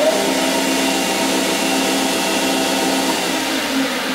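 Grizzly G0602 bench lathe running at full spindle speed, its VFD-driven three-phase motor and headstock gears giving a steady whine of several tones over mechanical noise.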